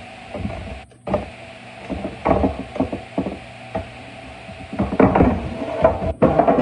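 Kitchen clatter: a run of knocks and clinks from dishes, utensils and cookware being handled, busiest from about five seconds in, over a faint steady hum.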